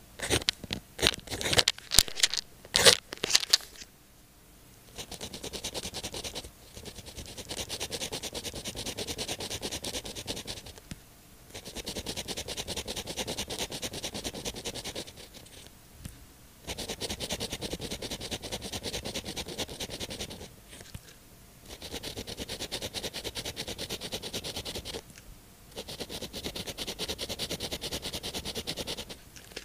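Pen nib scratching across sticky-note paper in handwriting strokes, in runs of a few seconds with short pauses between words or lines. Louder, sharper strokes come in the first few seconds.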